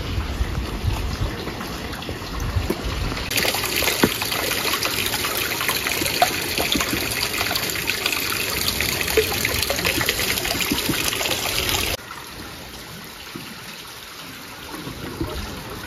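Water pouring from a bamboo spout onto a wooden water wheel and splashing in a steady rush. A low rumble sits under the first few seconds. About twelve seconds in the rush drops off abruptly to a fainter trickle.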